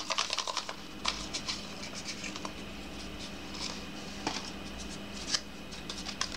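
Folded paper slips being handled: a quick rattle of clicks at first, then scattered light rustles and clicks as a slip is drawn from a small pot and unfolded, over a faint steady hum.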